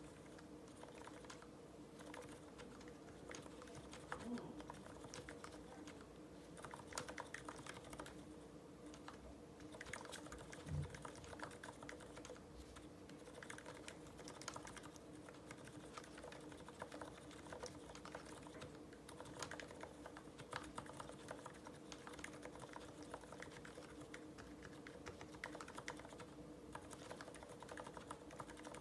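Quiet, continuous typing on an IDOBAO ID80 V2 mechanical keyboard with lubed Cherry MX Silent Red linear switches and GMK ABS keycaps. The keystrokes are soft and damped, and there is one louder low thump about eleven seconds in. A faint steady hum runs underneath.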